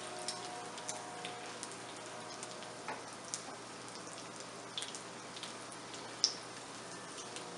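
Egg-coated potato patties shallow-frying in oil over low heat: a steady sizzle with scattered crackling pops, and one sharp click about six seconds in.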